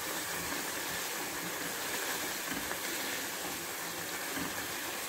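Chicken koftas in masala gravy sizzling steadily in a frying pan as they are stirred and fried down (bhuna).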